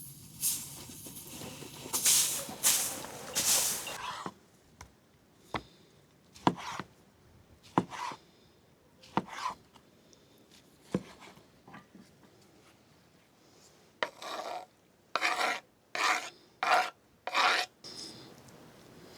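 Hand work with hard objects: a few rasping scrapes, then a run of single sharp knocks and clicks, then a quick series of five scrapes near the end.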